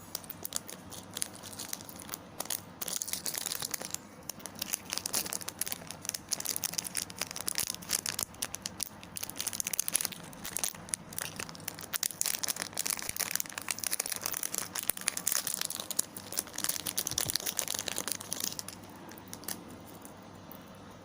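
Plastic packaging crinkling and tearing as it is handled and opened, a dense run of crackles that stops near the end.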